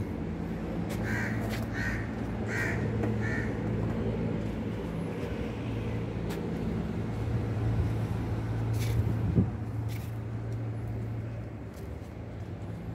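A crow cawing four times in quick succession about a second in, over a steady low hum. Later there is a single sharp knock.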